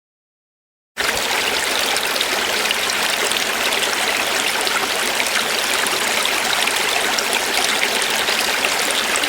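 Steady rushing of flowing river water, cutting in suddenly about a second in after dead silence.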